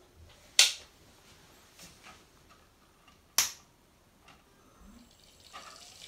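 Two sharp clicks about three seconds apart, then, from about five seconds in, a rising hiss of coolant starting to flow through a custom PC watercooling loop as it is being filled.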